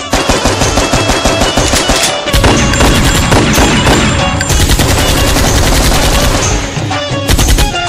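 Rapid machine-gun fire sound effect mixed over music, a dense unbroken stream of shots that grows louder and thicker about two seconds in and thins out again near the end.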